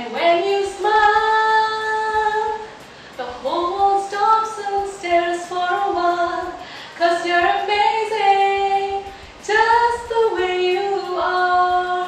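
A woman singing alone without accompaniment: long held notes in short phrases, with brief pauses for breath between them.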